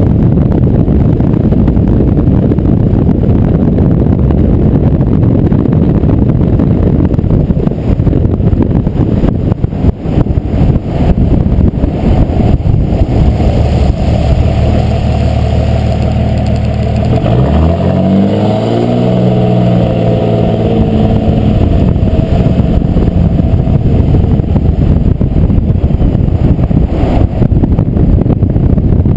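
Dodge 5.9 Cummins turbo-diesel pickup running under way with a heavy rushing noise. About halfway through, the engine note holds steady, then climbs sharply as the truck accelerates.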